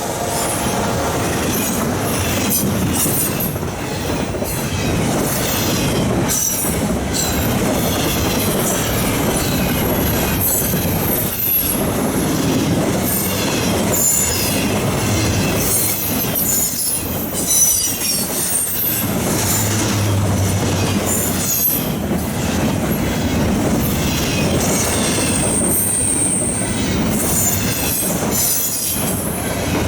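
Freight train of intermodal well cars rolling past at track side: a steady rumble of wheels on rail with repeated clicks over the rail joints and high-pitched wheel squeal at times.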